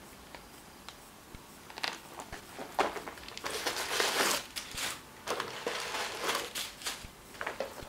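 Rustling and crinkling from hands handling a leather chain bag. The sounds come in irregular bursts from about two seconds in, loudest around the middle, with a few sharp clicks.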